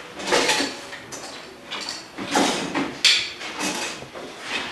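Workshop handling noise: an irregular series of clunks and scrapes, about half a dozen in a few seconds, as tools and clips are picked up and set down.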